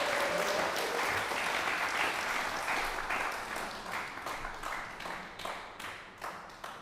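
Audience applauding. The applause thins out into scattered separate claps and fades away.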